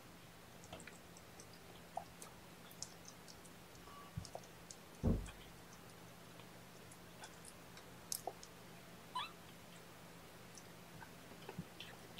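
Young kittens, about three weeks old, mewing a few times amid light scattered ticks and rustles, with one dull thump about five seconds in.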